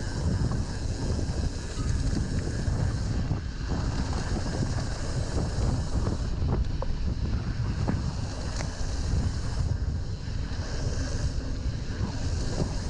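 Wind buffeting the microphone during a mountain-bike ride, a steady low rumble with scattered small knocks and rattles from the bike over the trail.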